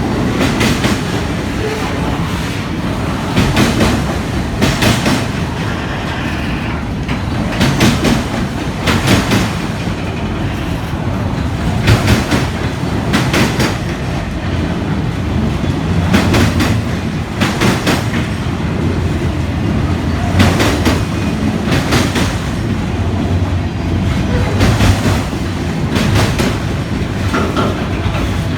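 Autorack freight train rolling past: a steady low rumble of the cars with the wheels clicking over rail joints in quick pairs, about one pair every second or so.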